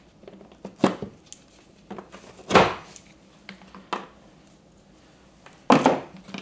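A series of sharp plastic clicks and knocks, about six, the loudest a little before the middle, from push-pin rivets being pulled out of the plastic fender and hood panels of a Polaris RZR Pro XP.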